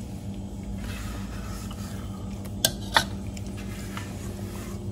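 Spatula scraping cake batter out of a stainless steel mixing bowl into a baking dish, with two sharp clicks of the utensil on the metal bowl about two and a half and three seconds in.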